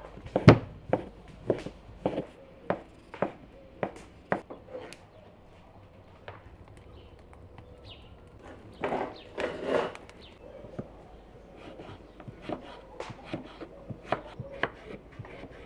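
Kitchen knife chopping on a wooden cutting board, slicing boiled sausage into strips: even strokes about twice a second. After a pause broken by a brief rustle, quicker, lighter chopping starts again near the end as raw potatoes are cut into sticks.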